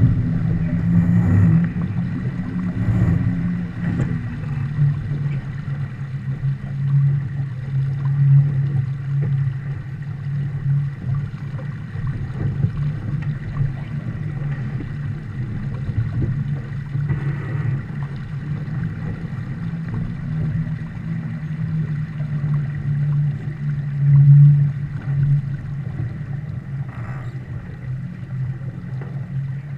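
Water rushing along the hull of a Viper sport boat heeled under sail, mixed with wind on the microphone: a steady rushing that swells louder now and then, most strongly about two-thirds of the way through.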